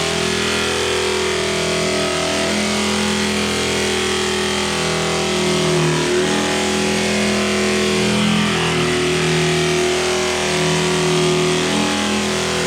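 Background music: sustained chords that change every second or two over a steady bass line, with a full, dense top.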